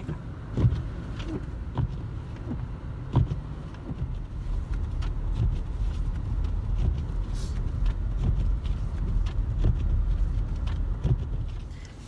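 Steady low rumble of a car driving on a snow-covered road, heard from inside the cabin, with irregular light knocks and clicks.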